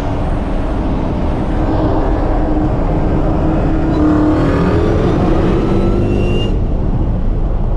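Dodge Charger SRT Hellcat's supercharged 6.2-litre V8 running hard under acceleration at high road speed, its pitch climbing a little about halfway through.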